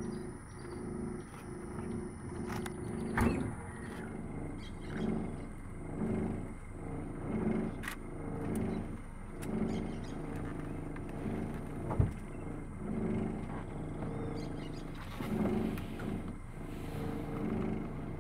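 Boat's outboard motor running at low speed with a low hum that swells and fades about once a second. There is a knock about three seconds in and a sharper one near twelve seconds.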